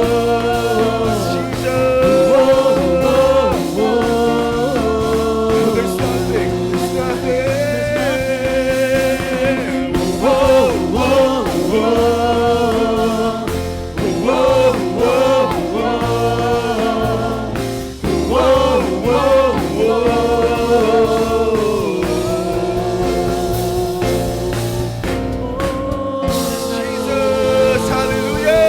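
Contemporary worship band playing a song with singing, bass and drums.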